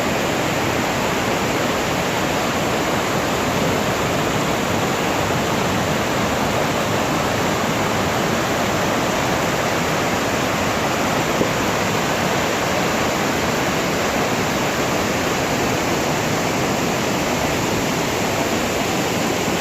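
Låtefossen, a large twin waterfall, rushing and crashing: a loud, steady roar of falling water.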